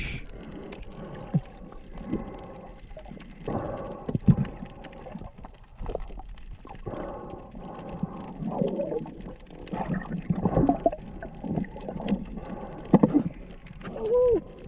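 Muffled underwater sound through a waterproof camera housing: water movement and bubbling with scattered knocks, and a few short wavering tones about halfway through and near the end.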